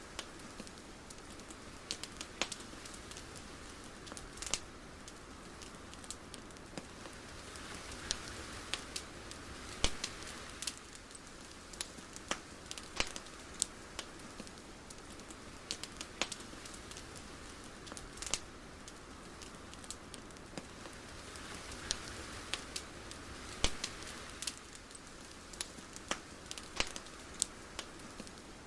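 Irregular sharp crackles and clicks scattered over a soft steady hiss, which swells gently twice.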